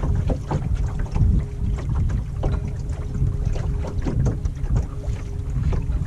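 Wind buffeting the microphone and water slapping irregularly against the bow of a small dinghy under way, with a faint steady hum from a Bison electric outboard motor running underneath.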